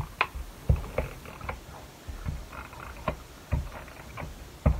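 Adhesive tape runner dabbing small squares of glue onto a cardstock cut-out: a string of short, irregular clicks and taps, with the loudest tap just before the end.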